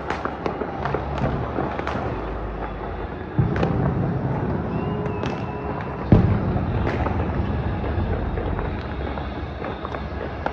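Fireworks exploding: a steady crackle and rumble of many distant bursts, punctuated by sharper, nearer bangs, the loudest about three and a half seconds in and again about six seconds in.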